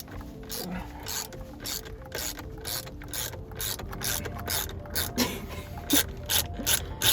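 Socket ratchet wrench clicking steadily at about three clicks a second as it turns out a steering wheel's centre bolt.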